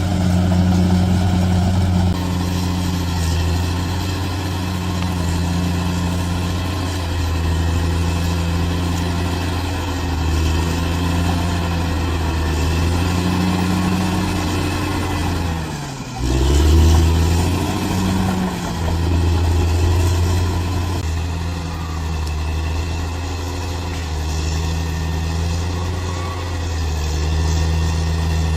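Bulldozer's diesel engine running under varying load, its pitch rising and falling. About two-thirds of the way through it drops low for a moment, then revs back up louder.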